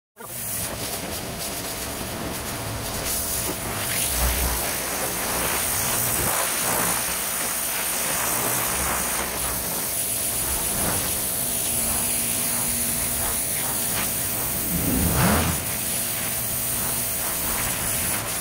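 Pressure washer spraying: a steady hiss of the high-pressure water jet, with the machine running underneath. It swells briefly about fifteen seconds in.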